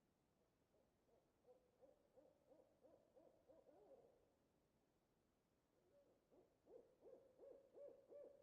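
Owl hooting in two quick runs of short hoots, about three a second. The first run starts about a second and a half in; the second starts about six seconds in and is still going at the end.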